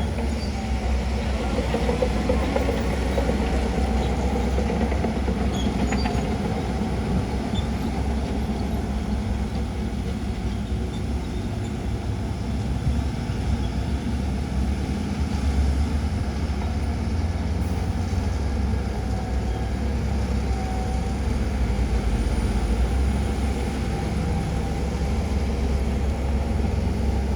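Heavy diesel engine of a Shantui DH17C2 crawler bulldozer running steadily, with a few faint high squeaks a few seconds in.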